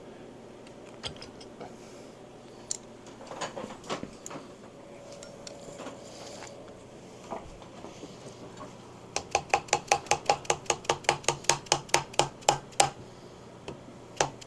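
A quick, even run of light metallic clicks, about seven a second for some three and a half seconds, with two more a second or so later; a few scattered clicks come before it.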